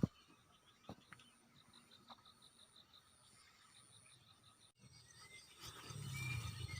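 Faint outdoor chorus of insects and frogs: short high calls repeating at an even pace, with a couple of soft clicks. About five seconds in, the sound changes abruptly and a low rumble rises, with short chirping calls over it.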